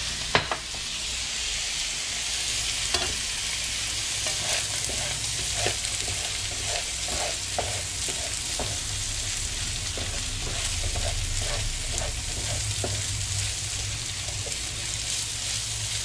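Cooked rice with mushrooms, corn and peas frying in a hot pan with a steady sizzle, while it is stirred, the utensil scraping and clicking against the pan many times.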